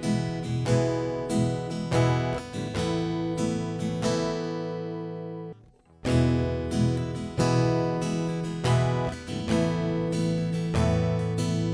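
Jcraft Troubadour Taka Mini GS Pro solid-top travel acoustic guitar strummed in chords through its pickup while the blend is moved from piezo toward the onboard mic. A chord rings out and stops about five seconds in, and strumming starts again a moment later.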